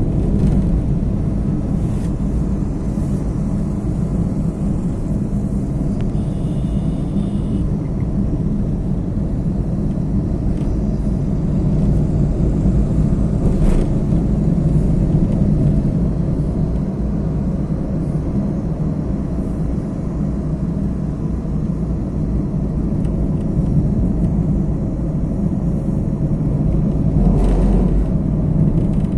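A car driving, with a steady low rumble of engine and road noise. A brief faint high tone sounds about six seconds in, and a stronger low bump comes near the end.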